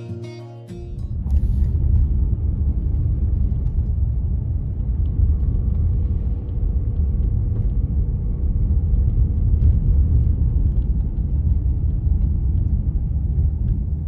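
Car driving along a dirt and gravel forest road, heard from inside the cabin: a steady low rumble of tyres and engine, with faint scattered ticks.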